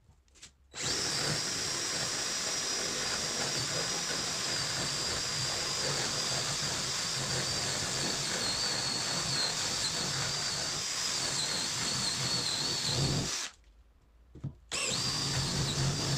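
Cordless drill boring a 35 mm Forstner bit into a wooden board: a steady high motor whine over the noise of the bit cutting wood. It runs for about twelve seconds, stops, and starts again for a couple of seconds near the end.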